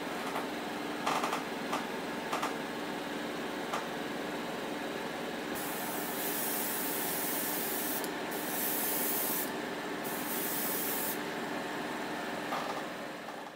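Light stone cellulose paint sprayed onto a die-cast toy car body in three bursts of hiss over the middle of the stretch, each a second or two long, over a steady mechanical hum. A few light clicks come in the first few seconds.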